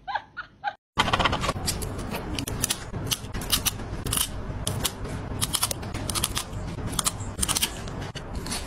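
A few short high-pitched calls. Then, about a second in, a run of sharp clicks, two or three a second, from a pet nail clipper snipping a cat's claws, over a steady background hiss.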